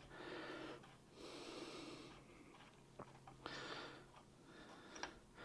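A man breathing hard through his nose and mouth in three soft, wheezy breaths while straining at a job, with two faint clicks about three and five seconds in.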